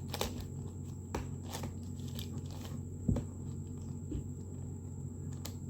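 Layers of a 7×7 Rubik's cube being turned by hand: a few scattered plastic clicks and scrapes, the sharpest about three seconds in, over a low steady hum.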